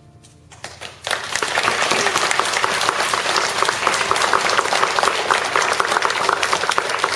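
Audience applauding, breaking out about a second in with dense clapping that holds steady.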